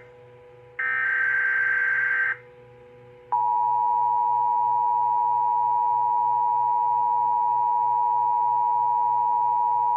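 Emergency Alert System header: a short burst of warbling data tones about a second in, then after a one-second gap the steady two-tone EAS attention signal. Together they announce a new alert.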